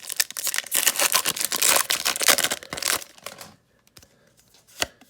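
Foil wrapper of a Pokémon card booster pack crinkling and tearing as it is opened, for about three and a half seconds, then one sharp click near the end.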